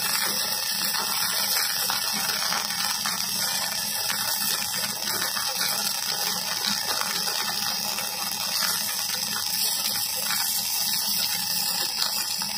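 Electric welding arc burning steadily on a pipe fitting: a continuous frying, crackling hiss.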